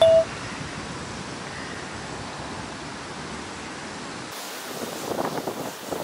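A short, loud electronic beep at the very start, then a steady hiss of wind on the microphone. A little past four seconds the sound cuts to a different recording with irregular gusts buffeting the microphone.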